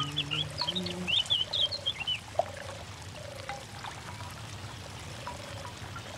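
Woodland ambience: a songbird sings a quick run of high chirps for about the first two seconds, over a short low note that repeats about once a second. In the first second a low hummed, voice-like sound trails off.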